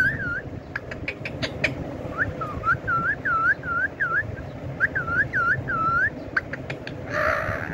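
A string of short whistled notes, each dipping and rising in pitch, about three a second in three runs. A few sharp clicks come between the runs, and there is a brief harsh burst near the end.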